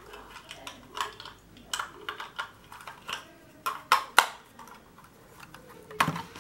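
Plastic LEGO bricks and modules clicking and knocking together as they are handled and set in place: scattered sharp clicks, with a quick cluster of several about four seconds in.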